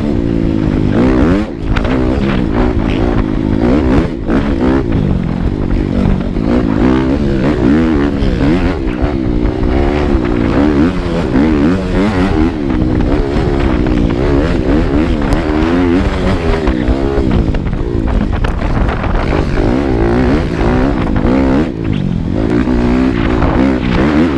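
Dirt bike engine being ridden, revving up and down constantly, its pitch rising and falling every second or so.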